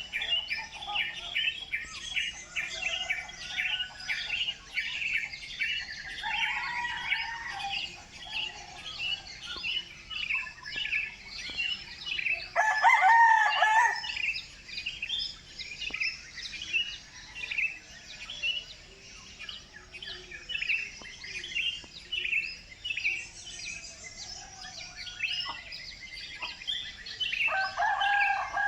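Many small birds chirping rapidly and continuously. A rooster crows once, loudly, about halfway through, and starts another crow near the end.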